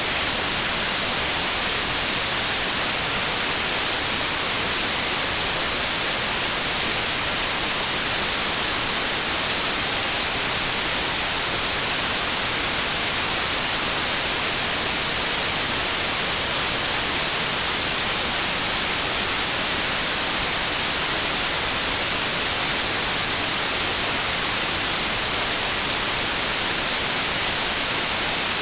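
Continuous white noise: a steady, even hiss, strongest in the treble, with no change in level or texture.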